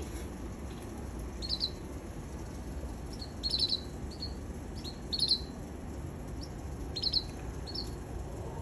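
Canary chirping: a handful of short, high notes at uneven intervals, over a steady low background hum.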